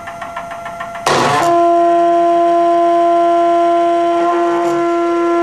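IMS MDrive stepper motor driving a small belt conveyor, running with an even ticking. About a second in, a brick lands on the belt with a short clatter. The motor then stalls and gives a loud, steady, single-pitch whine with overtones: the stall that a stepper in plain step-and-direction mode suffers under a sudden load.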